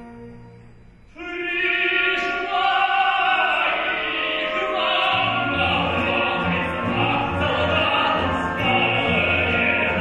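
Operatic tenor singing a romance with a symphony orchestra. A held orchestral chord fades out, then about a second in the voice enters with the strings, and low bass notes join about five seconds in.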